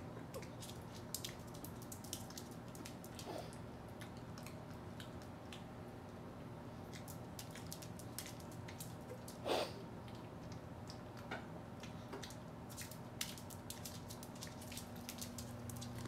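Faint scattered clicks and ticks from a cat and a small dog moving about and nosing at treats on a hard wood-look floor, over a steady low hum. One brief, louder sound comes about nine and a half seconds in.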